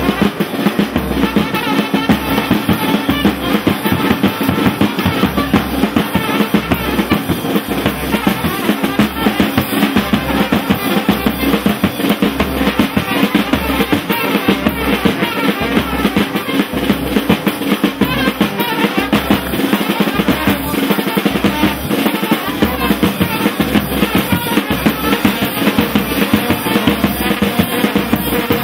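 Brass band with drums playing dance music, over a steady bass drum beat.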